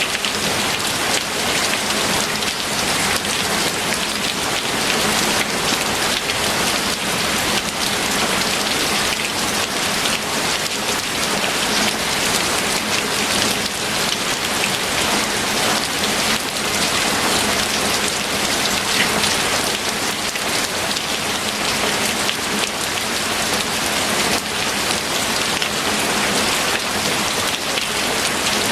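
Steady rain falling: an even hiss of many drops pattering on a surface, without break or change.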